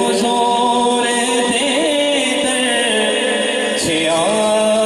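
Male naat reciter singing unaccompanied through a microphone and PA system, drawing out a long sung note with wavering melodic turns between lines of a Punjabi naat, over a steady drone of backing voices.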